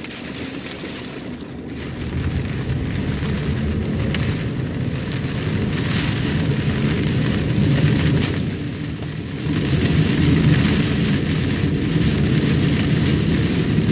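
Heavy rain pelting a moving car's roof and windshield, over a steady low rumble of tyres on the wet road. It swells about two seconds in, eases briefly past the middle, then comes back stronger.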